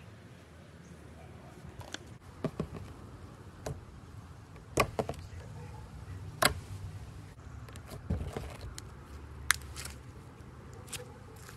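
Clear green glitter slime being stretched, squeezed and pressed with fingers, giving scattered sharp pops and clicks. The loudest come about five and six and a half seconds in.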